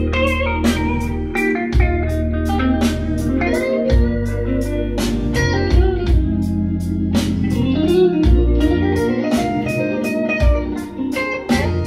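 Blues-rock song playing through Canton Reference 1.2 DC floorstanding speakers and a Canton subwoofer: an instrumental stretch led by electric guitar over bass and a steady drum beat, with no vocals.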